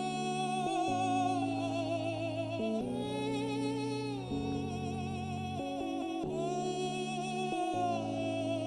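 Music: a high, held, wavering melody line over sustained low chords that change every second or two, without clear words.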